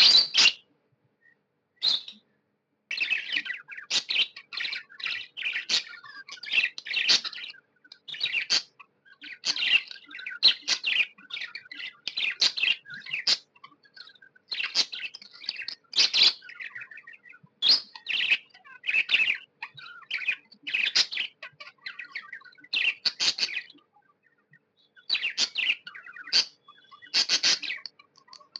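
Budgerigar chirping in quick runs of short, high chirps, with brief pauses early on and again near the end.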